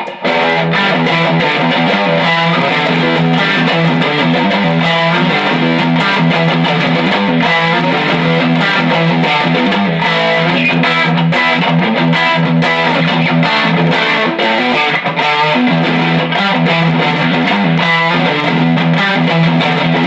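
Electric guitar with a Tim Shaw PAF humbucker in the bridge position, played through a Fender Deluxe amp's overdrive channel: continuous strummed chords and riffs with mild distortion.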